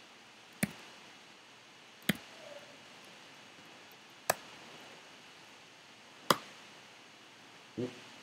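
Clicks on a laptop: four single sharp clicks about two seconds apart over a quiet room, with a short low sound near the end.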